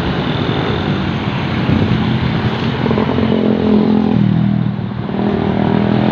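Tour bus engine passing close by on the road, settling into a steady low engine drone about two-thirds of the way through.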